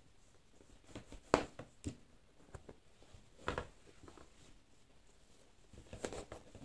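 Embroidery handling sounds: a needle and ribbon pushed and pulled through fabric stretched taut on a frame, giving a few sharp taps and short rasps, the loudest about a second and a half in.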